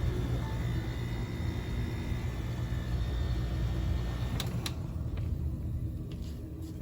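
1993 Carrier Weathermaker window air conditioner, with a Tecumseh RK rotary compressor, running steadily and then switched off: two sharp clicks about four and a half seconds in, after which its whine drops out and the unit winds down, quieter near the end.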